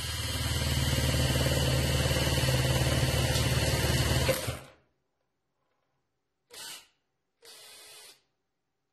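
Cordless drill-driver, fitted with a long flip-style bit extension, running steadily for about four and a half seconds as it drives a screw into a pine board, then stopping. Two short, quieter spins of the motor follow, about two and three seconds later.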